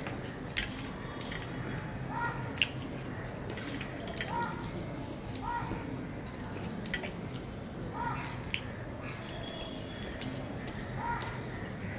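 Eating by hand: wet mouth smacking and chewing of rice and fish curry, with fingers squishing the rice on a steel plate and short sharp clicks against the plate. The loudest click comes a little over two seconds in.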